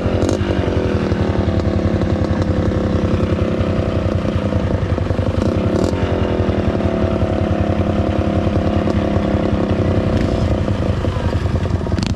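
Dirt bike engine running under way on a trail, its revs rising and falling as the rider works the throttle.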